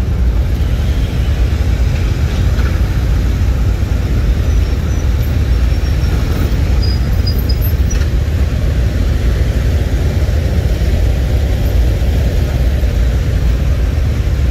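A long line of police motorcycles rolling slowly past together, their engines making a steady, deep rumble.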